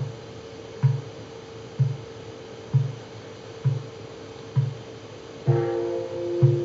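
Mokugyo, a Buddhist wooden fish drum, struck with a padded mallet in a steady beat of about one dull knock a second. A temple bowl bell hums throughout and is struck once near the end, ringing on with several tones.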